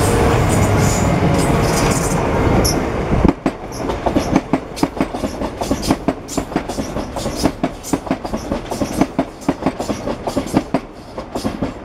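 Gatwick Express Class 442 electric multiple unit running through the station at speed without stopping. A loud steady rumble for the first three seconds or so drops off suddenly into a quick, even clickety-clack of its wheels over the rail joints, several clacks a second, which goes on until near the end.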